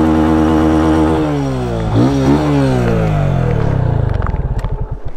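Motorcycle engine revving up, holding steady for about a second, then its pitch slowly falling as the revs drop, with a short throttle blip about two seconds in.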